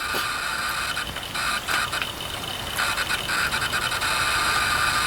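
Hard drive fitted inside a Macintosh Plus spinning with a high whine that cuts out and returns several times. Its bearings are worn out.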